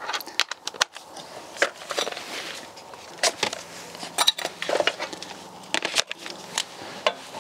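Tools being handled: scattered clicks and knocks as a socket is fitted to a cordless impact wrench and tools are picked out of a plastic socket case.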